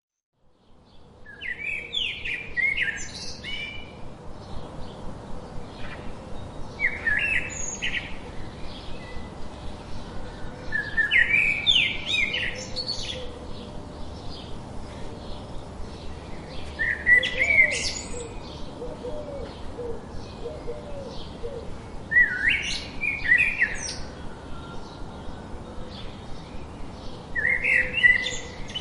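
A songbird singing short, quick, high phrases, one about every five seconds, over a faint steady outdoor background.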